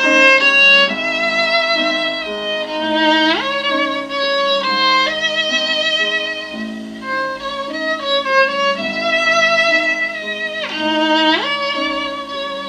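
Violin music with vibrato on sustained notes and two quick upward slides, played back through a 6BM8 (6F3P) single-ended valve amplifier and bare Isophon oval loudspeakers.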